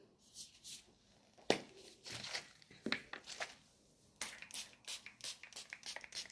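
Plastic packaging crinkling and rustling as a new hair dryer and its parts are unwrapped and handled, in irregular short crackles that come thicker over the last two seconds.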